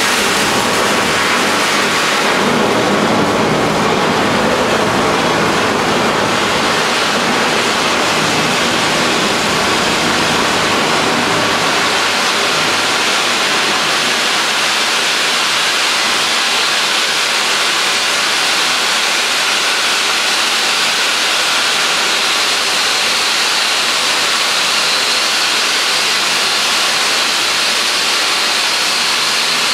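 Two pyrotechnic stage fountains (gerbs rated for a 3 m spark column and a 30-second burn) spraying sparks with a steady hiss.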